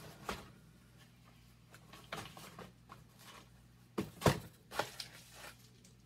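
Scattered rustles and light knocks of items being handled and moved about in a beauty subscription box, with the loudest knock about four seconds in.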